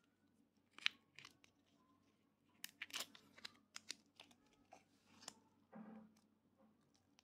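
Faint crinkling and tearing of a small plastic snack-sausage wrapper being handled, as a string of scattered crackles that cluster about halfway through.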